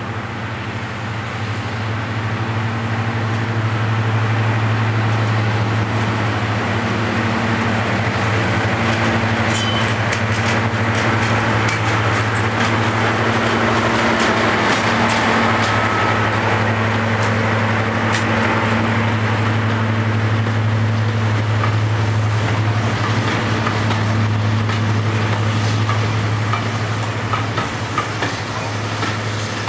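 Class 55 Deltic diesel locomotive's twin Napier Deltic two-stroke engines running with a steady deep drone as it hauls a train past close by, growing louder over the first few seconds. Through the middle come rapid sharp clicks of wheels running over rail joints and points.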